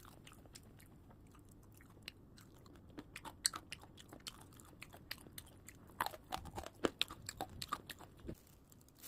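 Someone biting and chewing crunchy sweet potato sticks: faint, crisp crunches scattered irregularly, getting busier from about three seconds in.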